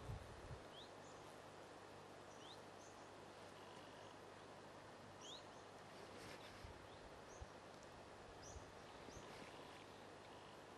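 Near silence: steady outdoor background hiss with faint, short rising chirps from a small bird scattered every second or two. A brief low rumble at the very start dies away within half a second.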